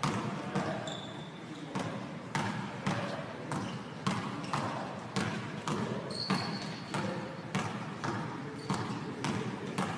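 Basketball dribbled on a gym floor, about two bounces a second, each bounce echoing in the gymnasium. Two short high squeaks come about a second in and again about six seconds in.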